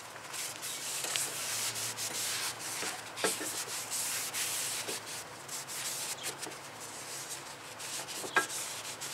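Rubbing and wiping on the face of a new brake rotor as it is cleaned of fingerprints, an uneven scrubbing hiss with a couple of light knocks.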